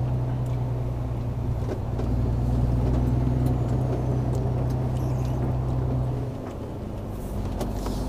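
Lorry's diesel engine running under way, heard from inside the cab as a steady low drone that drops lower and quieter a little over six seconds in.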